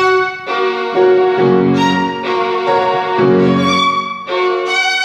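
Violin playing a melody in long bowed notes, changing pitch about once a second, with grand piano accompaniment.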